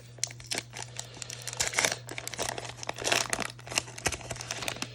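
Trading card pack wrapper being torn open and crinkled by hand: a run of irregular crackles and rips, densest about two and three seconds in.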